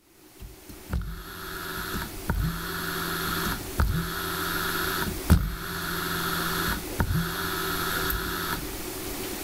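Brushless servo motor driven by a GaN (EPC2152) three-phase inverter at 50 ns dead time, running through repeated motion cycles. There are about five stretches of steady hum and whine, each a little over a second long, separated by sharp clicks, over a constant low drone.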